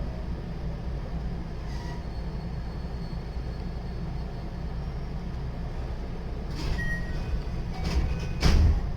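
JR West 223 series electric train running, a steady low rumble of wheels on rail heard from inside the car. Several short clattering knocks break in about six and a half seconds in, the loudest just before the end.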